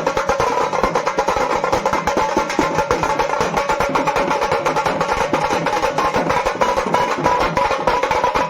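Shehnai band music: a sustained reed melody over fast, dense drumming.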